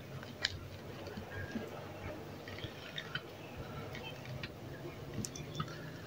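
Crushed honeycomb and honey being scraped by hand out of a steel pot into a cloth strainer: soft, sticky squelching with scattered small clicks.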